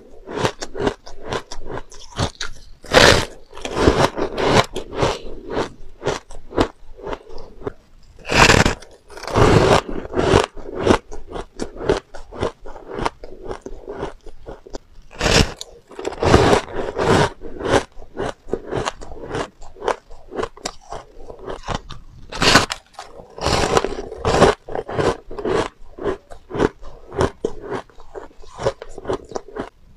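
Soft, powdery shaved ice being bitten and chewed close to a lapel microphone: a steady run of crisp crunches, with a louder bite every several seconds.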